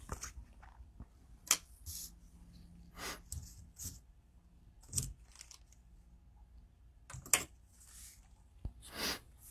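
Trading cards and plastic cello-pack wrappers being handled: about a dozen short, irregular rustles and clicks, the sharpest about a second and a half in and again a little after seven seconds.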